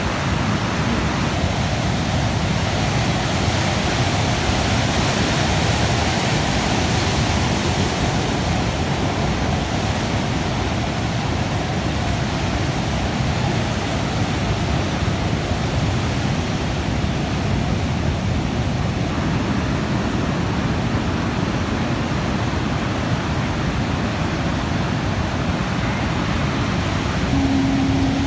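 Heavy sea surf making a steady, unbroken roar. A brief low hum comes in near the end.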